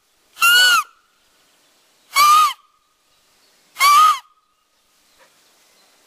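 Blade of grass stretched between the thumbs and blown as a bird lure, giving three loud, harsh squawks about a second and a half apart, each rising and then falling in pitch.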